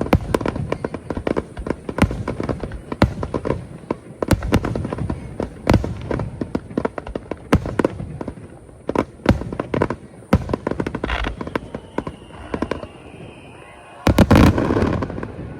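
Aerial fireworks shells bursting at close range in quick succession: a dense run of bangs and crackles that thins out after about eleven seconds, then a final loud cluster of bursts near the end.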